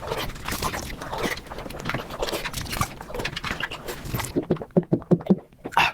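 Close-miked chewing and mouth sounds from eating, sped up five times so the crunches and smacks run together into a dense, fast crackle. Near the end it thins into a quick run of short, low mouth sounds.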